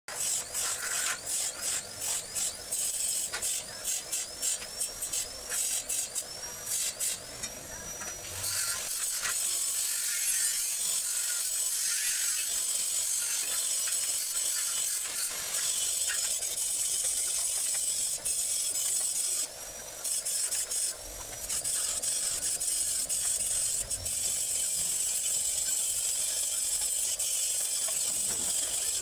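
Electric arc welding on steel tubing: short stop-start crackles and clicks for the first several seconds, then a steady high frying crackle with a couple of brief breaks.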